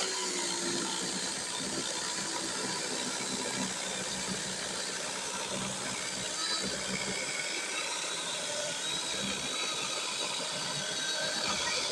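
DeWALT DCCS620 20V brushless 12-inch compact battery chainsaw cutting through a 6–7 inch piece of wood, its motor running steadily under load.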